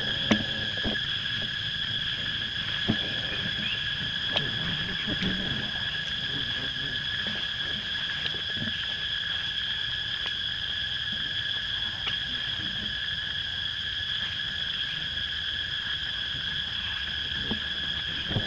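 Steady, continuous high-pitched drone of forest insects, holding two even pitches throughout, with a few sharp clicks scattered through it.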